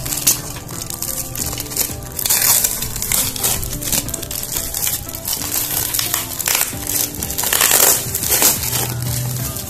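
Box cutter slicing through plastic packing tape and corrugated cardboard, with the tape and cardboard crackling and tearing in irregular bursts as the flaps are pried open; the loudest tearing comes a couple of seconds in and again near the end.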